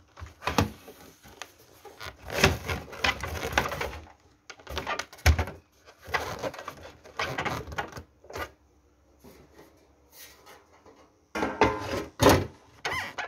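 Sheet-metal cover panels of a vintage Pioneer SA-8800 amplifier being handled and fitted back on: irregular clattering knocks and scrapes. It goes quieter for a few seconds past the middle, then a fresh burst of knocks comes near the end.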